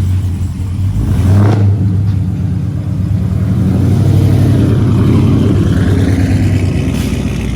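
2020 Scat Pack's 6.4-litre HEMI V8 running loud and deep through its aftermarket headers, with a brief surge about a second and a half in.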